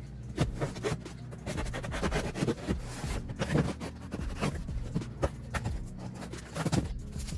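Hands handling an iPad's packaging: a run of irregular taps, clicks and rustles.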